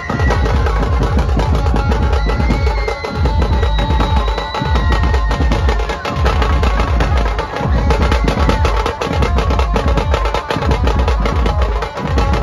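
Dhumal band playing a sawari dhun: fast stick drumming on a double-headed drum over a keyboard melody and heavy bass from a loudspeaker rig.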